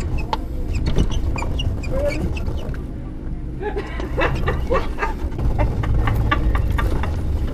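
Shopping cart rolling across a hard floor with a steady low rumble, its load rattling and knocking as it moves, with a few short high squeals over the top.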